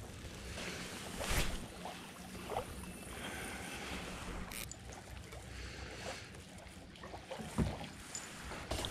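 Gentle water lapping at the shoreline with light wind noise, broken by a few soft knocks and rustles of handling, the clearest about a second in and near the end.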